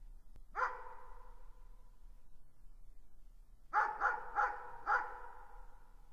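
A dog barking in the distance: a single bark, then about three seconds later a quick run of four barks. Each bark trails off in an echo.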